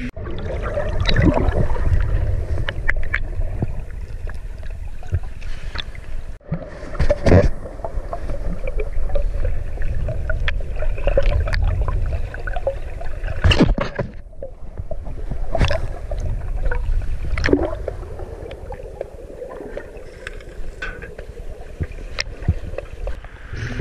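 Muffled river water heard with the microphone at and below the surface: a heavy, steady rumble of moving water, louder in the first half, with a few sharp knocks and splashes against the camera housing.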